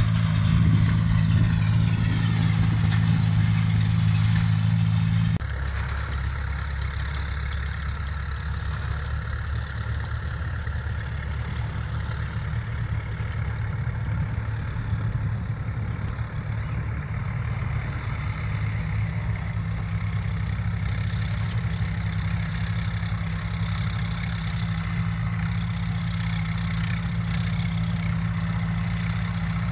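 Farm tractor's diesel engine running steadily while pulling a mounted seed drill through tilled soil. About five seconds in, the drone drops to a lower, slightly quieter note.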